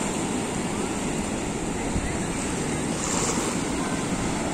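Sea surf washing over rocks and sand, a steady rush of breaking waves, with wind buffeting the microphone.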